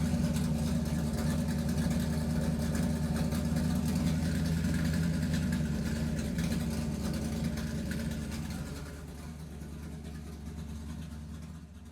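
Electric motor and geartrain of an MN99S scale RC crawler running at a steady pitch as it drives, becoming quieter about eight seconds in.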